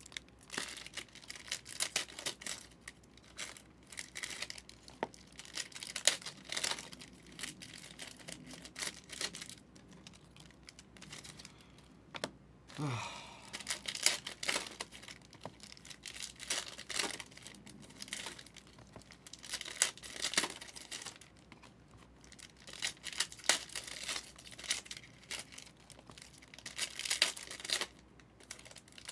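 Plastic wrappers of 2023 Optic football trading-card packs being torn open and crinkled by hand: a run of sharp rips and crackles with short lulls between.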